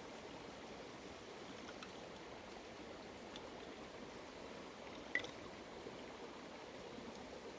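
Faint, steady flow of a stream, with a single brief click about five seconds in.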